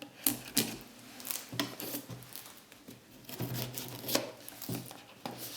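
A knife cutting through the packing tape on a cardboard box: a run of short, irregular scrapes and clicks as the blade slits the tape.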